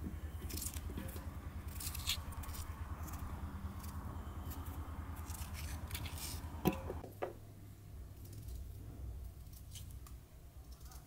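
A small knife peeling and cutting raw potatoes by hand: light scraping and clicking of the blade through the skin, with one sharp knock about two-thirds of the way through. A low steady hum sits under the first two-thirds, then drops away.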